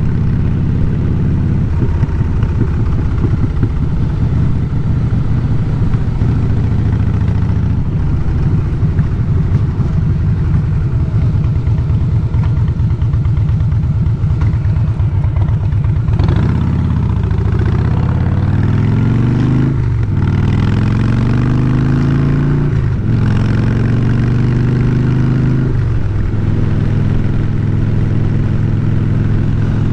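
Harley-Davidson Fatboy's air-cooled V-twin running at a steady cruise. About halfway through, the revs dip, then climb three times, each climb cut by a brief gap at a gear change, before the engine settles back to a steady pace near the end.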